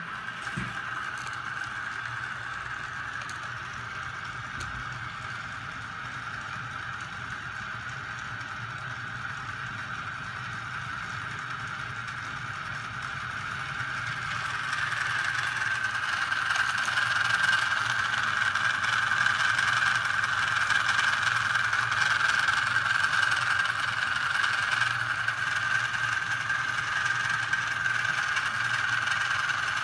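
Small 12-volt DC electric motors running a homemade magnet-crankshaft and flywheel rig: a steady high whine over a low hum, growing louder about halfway through.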